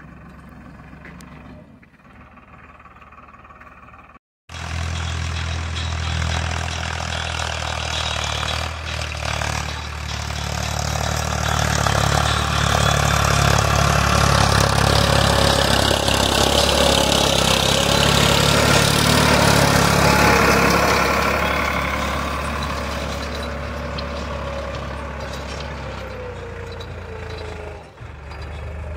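Tractor engine running under load while pulling a plough. It is quieter for the first few seconds, cuts out for a moment, then comes back louder and swells to a peak about two-thirds of the way through before easing off.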